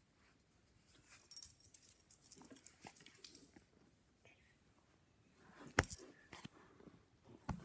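A small dog moving quickly about on a tile floor: claws clicking and tapping, with the metal tag on its collar jingling in stretches, and one sharp knock about six seconds in.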